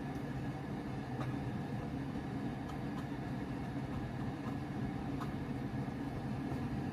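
Steady low background hum with a few faint, scattered clicks from a small knife cutting the crust off a slice of bread.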